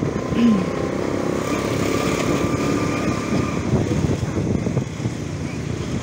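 Motorcycle engine running at town speed with road and wind noise, heard from on the bike, with a faint steady whine through the middle. A short falling tone, the loudest sound, comes about half a second in.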